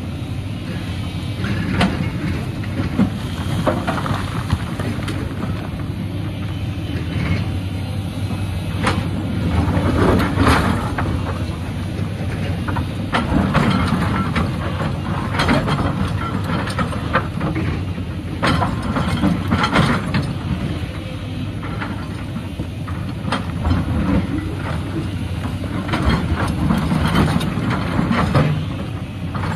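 Cat 323D3 hydraulic excavator at work: its diesel engine runs steadily while the steel bucket scrapes into rock, with irregular clanks and knocks of stones striking the bucket and each other.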